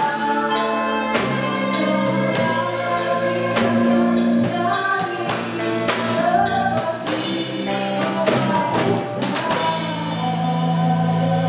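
Live band playing: electric guitars and a bass guitar through amplifiers over a drum kit.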